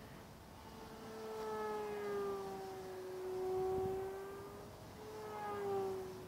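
Electric motor and propeller of an E-flite Carbon-Z Yak 54 radio-controlled aerobatic plane whining in flight. The pitch slides down and back up, and the sound grows louder and softer several times as the throttle and the plane's distance change.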